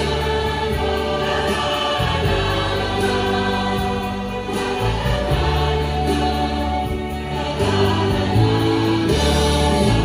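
Mixed choir of men and women singing in harmony, held chords changing every second or two over steady low bass notes.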